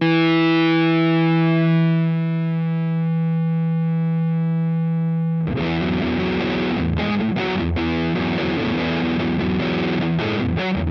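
Electric guitar played through a fuzz pedal. A single distorted note or chord is held and rings out, slowly fading. About five and a half seconds in, it switches abruptly to a busier, saturated riff with short rhythmic breaks.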